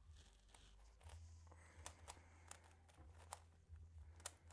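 Faint plastic clicks of a MoFang JiaoShi MeiLong Kilominx being turned by hand, a handful of short clicks at irregular intervals over a faint low hum.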